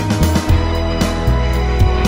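Background music with a strong bass line and a steady beat.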